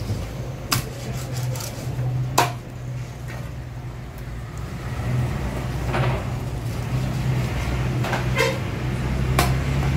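Heavy cleaver chopping barracuda into steaks on a wooden chopping block: a few sharp knocks, the loudest about two and a half seconds in, over a steady low hum.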